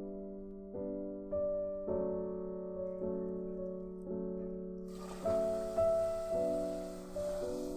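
Background piano music, single notes struck and left to fade. About five seconds in, a hissing sizzle sets in under the music as warm milk is poured into hot caramel.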